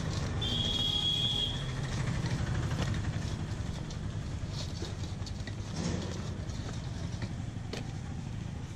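Steady low rumble of street traffic, with a single high steady tone lasting about a second shortly after the start. Faint soft slaps come now and then from wet urad dal vada batter being worked by hand in a steel bowl.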